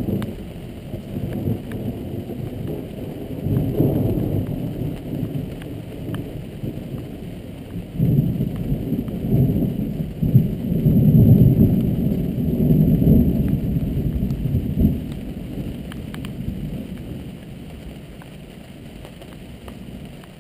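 Thunder rumbling in long rolling waves: it swells a few seconds in, is loudest through the middle, and dies away over the last few seconds.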